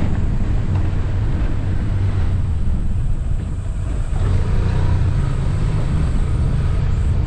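Motorcycle being ridden: a steady low engine rumble mixed with wind noise, easing off briefly a little past the middle.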